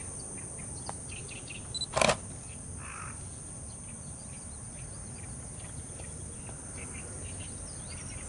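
Steady outdoor insect drone with scattered faint chirps. A single sharp knock about two seconds in, just after two small clicks, is followed a second later by a brief rustle.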